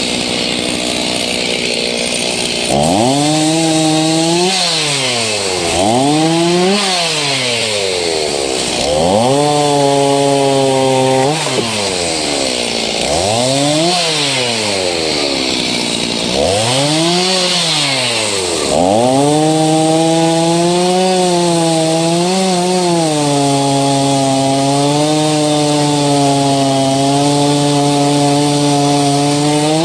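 Stihl MS-290 Farm Boss two-stroke chainsaw cutting up a fallen dead pine. The engine revs up and falls back several times, then from about two-thirds in holds at a steady high speed with small dips through a longer cut.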